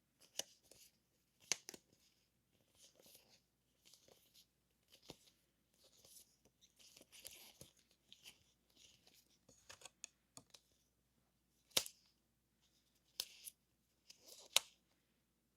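Paper stationery handled close to the microphone: irregular rustling and short tearing sounds broken by sharp clicks and taps, the loudest clicks near the end.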